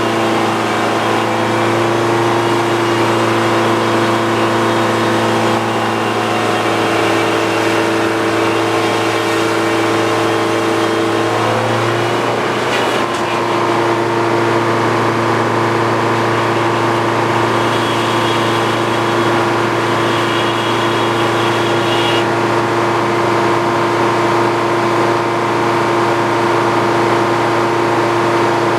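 Old Frick circular sawmill and its power unit running steadily at speed, with a short change in pitch about twelve seconds in.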